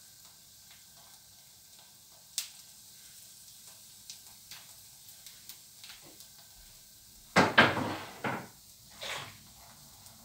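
Kitchen utensils handled while topping a dosa with chopped vegetables: scattered light clicks and ticks, then a short burst of clattering and scraping about seven and a half seconds in, and one more knock about a second later.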